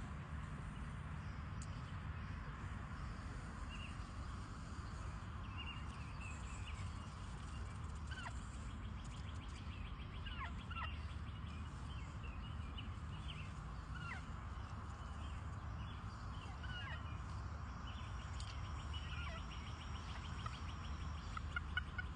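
Free-range poultry calling: scattered short high peeps and calls, several sliding down in pitch, with a quick run of calls near the end, over a steady low rumble.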